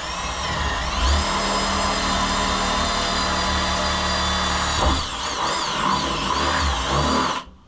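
Electric drill boring bolt holes through a plastic dirt-bike fender. The motor whine rises as it spins up, then runs steady. After a knock about five seconds in, the pitch wavers under load, and the drill stops abruptly near the end.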